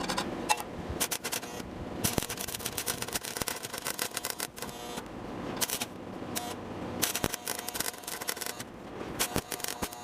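Stick (arc) welding with a rod electrode on steel plate: the arc crackling and sizzling in several spells, breaking off briefly and striking again.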